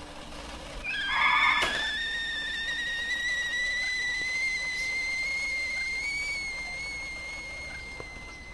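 A short hiss about a second in, followed by a sustained high whistling tone that wavers slightly and creeps a little upward in pitch. The tone fades somewhat near the end.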